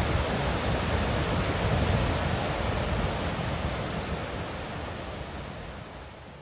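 Mountain stream rushing and splashing over boulders in small cascades, a steady full rush of water that fades away gradually over the second half.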